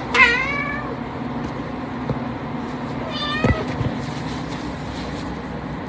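A cat meowing twice: a short call that drops in pitch about a quarter second in, and a higher falling meow about three seconds in, followed by a soft thump.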